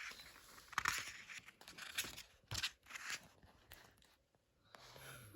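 Faint paper rustling and crinkling, a few short rustles in a row, as of the pages of a paper book being handled.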